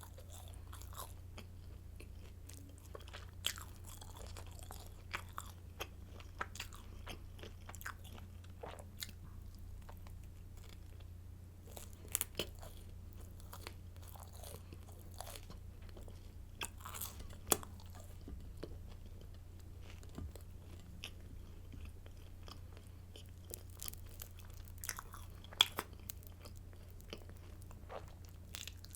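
Close-miked crunching and chewing of hard garlic baguette sticks, with irregular crisp cracks as each bite breaks up, over a steady low hum.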